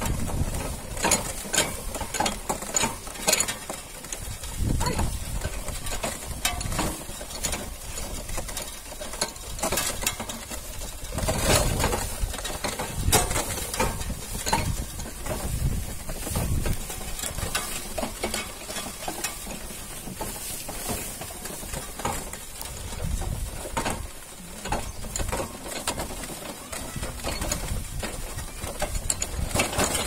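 Wooden bullock cart rolling along under load, its spoked wooden wheels and wooden frame rattling and knocking irregularly over a low rumble.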